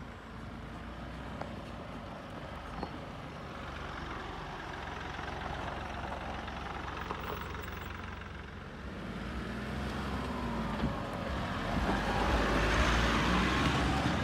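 Mahindra Bolero diesel SUV engine running as it drives along a rough dirt track, with tyre noise on the dirt. It grows louder from about ten seconds in as the vehicle passes close by.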